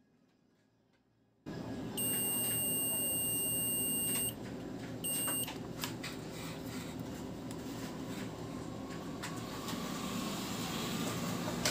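Digital multimeter's continuity buzzer beeping as its probes touch the phone board's network antenna line: one steady high beep of about two seconds, then a short beep a second later. The beep signals continuity, meaning the network line is intact and not cut. A steady background hiss runs underneath.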